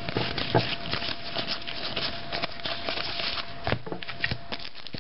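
Football trading cards being thumbed through one by one and laid down on a pile: a steady run of soft flicks and taps, with a few sharper clicks near the start and about three-quarters of the way through.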